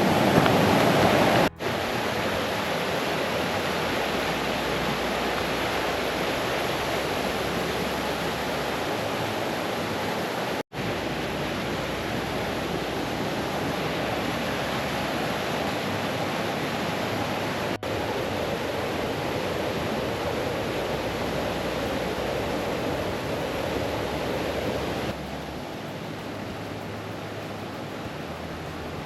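Woodland stream running over small falls: a steady wash of water, broken by brief dropouts where the shots change and a little quieter for the last few seconds.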